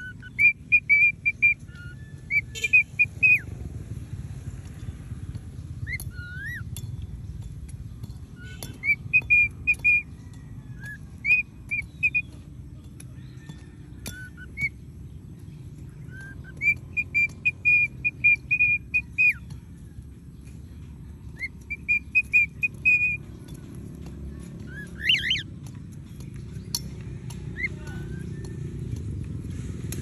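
Cockatiel singing: runs of quick, high whistled notes repeated in short phrases of one to three seconds with pauses between, and one rising whistle late on, over a steady low rumble.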